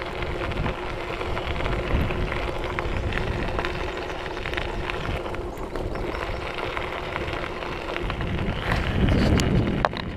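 Mountain bike rolling along a gravel trail, heard from the handlebars: steady crunching of tyres on gravel with scattered clicks and rattles from the bike. It grows louder and rougher near the end.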